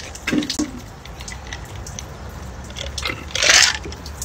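A man gulping ice water from a glass, with a couple of swallows about half a second in and small clicks of ice against the glass. A short hissing burst of breath and water comes near the end.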